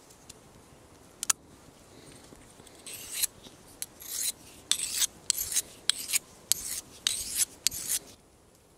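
Folding knife blade drawn across a white handheld sharpening stone in about eight quick scraping strokes over five seconds, each a bright hissing rasp. A sharp double click about a second in, as the knife is opened.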